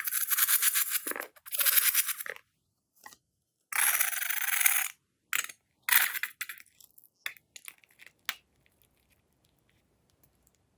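Crunchy slime being worked by hand, giving dense crackling in four short spells, then a few scattered crackles that die away about two-thirds of the way through.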